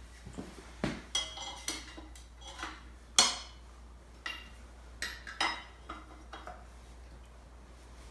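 Hand tools clinking and clanking on metal at the crankshaft pulley of a VW 1600 dual-port engine, which is being worked at without a puller. There are about a dozen sharp, ringing metallic knocks, irregularly spaced, with the loudest about three seconds in; they die away after about six seconds.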